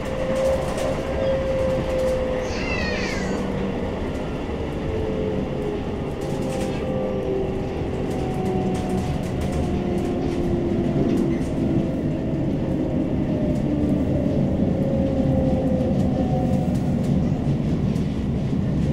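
Onboard running sound of a CAF Urbos 3 tram: a steady rumble with traction motor whine, its tones slowly falling in pitch, and a brief high squeal about two and a half seconds in.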